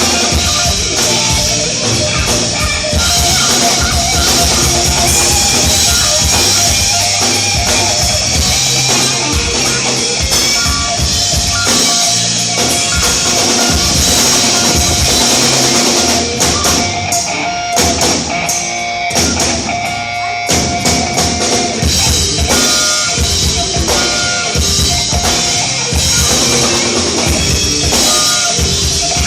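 Live rock band playing an instrumental passage: drum kit and electric guitar, loud, through a club PA. The drums thin out to sparser hits for a few seconds past the middle.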